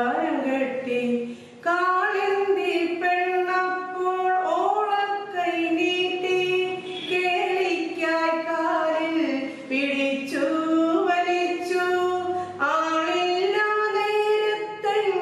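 A woman singing unaccompanied, holding long notes and gliding slowly between them.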